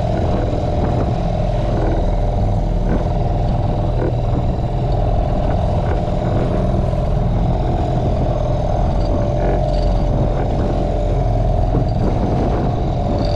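Outboard motor on a small boat running steadily at an even pitch while trolling.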